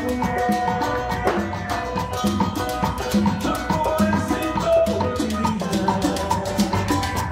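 Salsa band playing a fast, steady groove, driven by drum kit, cymbals and timbale-style hand percussion.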